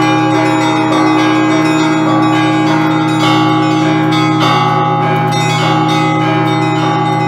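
Russian Orthodox church bells rung together in an improvised festive peal: quick, repeated strikes on the smaller bells over the long, steady hum of the larger ones.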